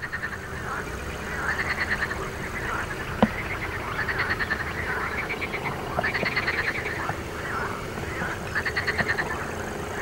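A chorus of frogs croaking, with overlapping pulsed, rattling calls that come in groups about every second. There is a single sharp click about three seconds in.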